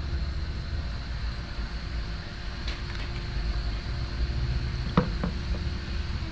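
Engine oil trickling from the opened oil filter housing into the funnel of a drain pan, over a steady low shop rumble. A single sharp knock about five seconds in.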